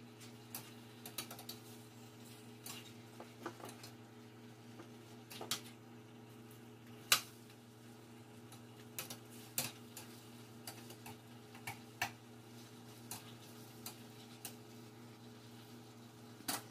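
A cooking utensil tapping and scraping against a frying pan as chicken wings are stirred and sautéed: irregular clicks and knocks, the loudest about seven seconds in. A steady low hum runs underneath.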